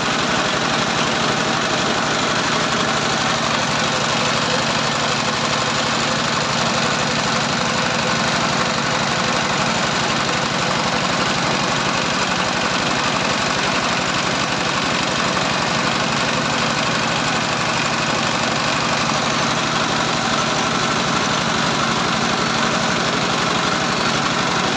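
Small stationary engine running at a steady speed, driving a dough extruder that pushes out strands of jhuri dough. The sound is an even, unchanging hum with a fast pulse underneath.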